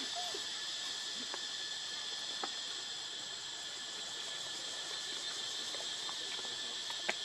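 A steady high-pitched insect chorus, with a faint tick about two and a half seconds in and a sharper click near the end.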